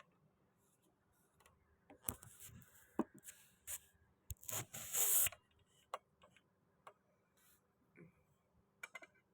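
Hand work on a door being repaired: scattered clicks and knocks of tools and hardware at irregular times, with a longer scrape about five seconds in.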